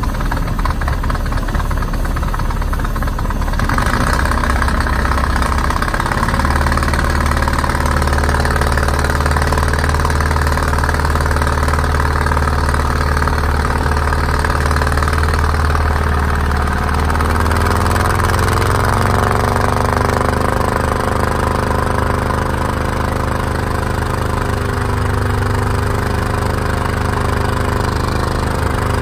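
Freefall lifeboat's diesel engine running under test with heavy blowby. Its note steps up a few seconds in, then rises to a higher, steady speed a little past halfway.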